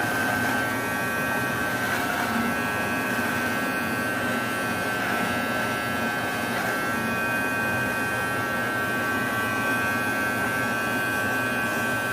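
Cheap cordless electric hair clipper running with a steady buzz.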